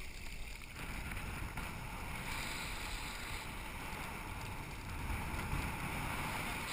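Steady wind rushing over the camera's microphone while a parasail is towed through the air, growing slightly louder toward the end.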